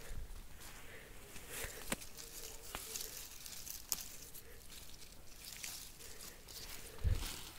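Tomato plant leaves and stems rustling as tomatoes are handled and picked by hand, with a few sharp clicks and a louder low thump near the end.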